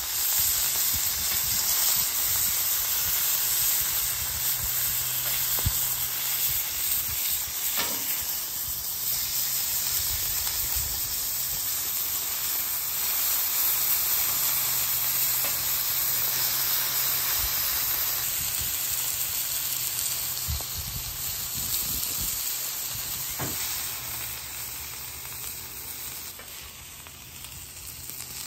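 Whole pieces of beef tenderloin searing in avocado oil on a hot flat-top griddle: a steady sizzle, with a few sharp clicks of metal tongs as the pieces are turned. The sizzle eases off near the end.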